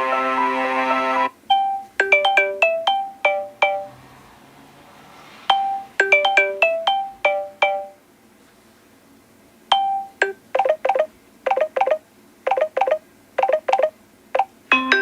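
Samsung Galaxy S6 Edge Plus stock ringtones playing in turn: a held chord ends, then a short melody of clipped, mallet-like notes is played twice with a pause between. A different, quicker pattern of short notes follows, and a new held chord begins near the end.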